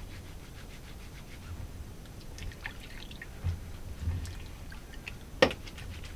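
Water splashing and dripping as hands squeeze and rub soap into a wool bonnet submerged in a stainless steel bowl, with a few soft thumps and one sharp knock near the end.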